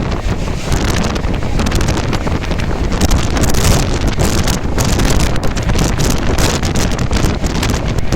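Heavy wind buffeting on the microphone over the steady rumble of moving traffic or a train, with no horn or clear tones.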